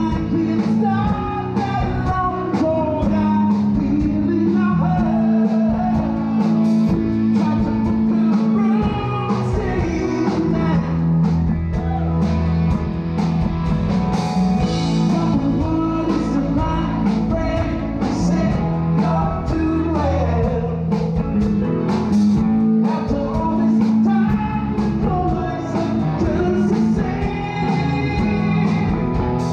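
Live rock band playing: electric guitars, bass and drums under a male lead vocal.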